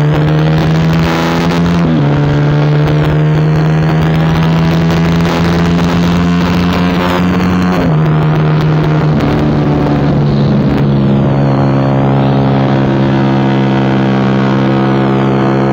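Suzuki GSX-R150's single-cylinder engine through an aftermarket racing exhaust, running hard at a steady high pitch while riding at speed. The pitch steps down slightly about two seconds in and again about eight seconds in.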